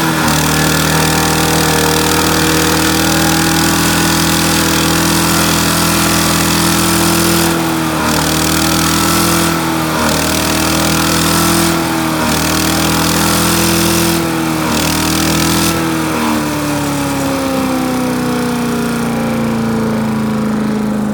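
Small gas engine of a wood chipper running loud and steady, with a rushing noise over it that breaks off briefly four times. In the last few seconds the noise fades and the engine slows, its pitch falling steadily.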